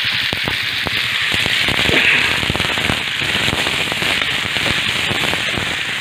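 Pork sautéing in hot cooking oil in a pan: a steady frying sizzle with frequent crackling pops.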